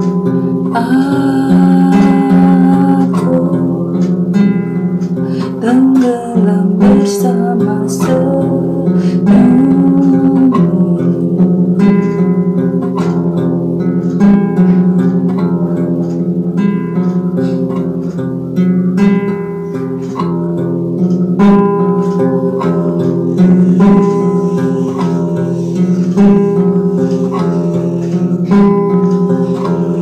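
Acoustic guitar plucked by hand in a steady pattern of chords. A voice sings the Indonesian song over it for roughly the first ten seconds, and the guitar carries on alone after that.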